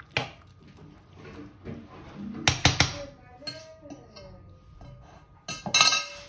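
Kitchen utensil clinking and knocking against cookware: a few sharp knocks about two and a half seconds in, and a louder cluster of clinks with brief ringing near the end.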